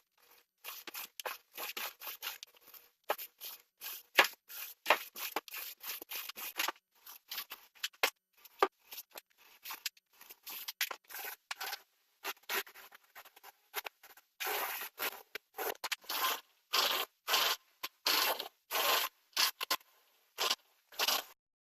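Paint roller rolling paint onto drywall: a run of short, sticky scraping strokes with gaps between them, the later strokes longer and coming about once a second.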